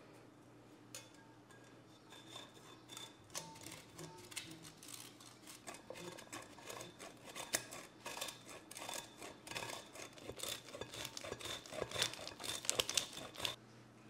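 A block of parmesan cheese grated on a metal rasp grater: quick rasping strokes that come thicker and louder toward the end, then stop abruptly.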